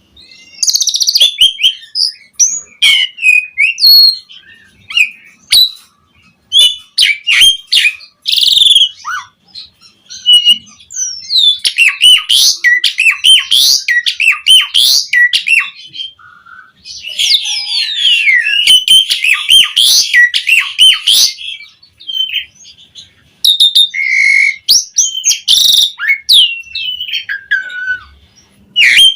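Pied starling (jalak suren) singing a long varied song of whistles, rapid chatter and squeaky notes, in runs of a few seconds broken by short pauses.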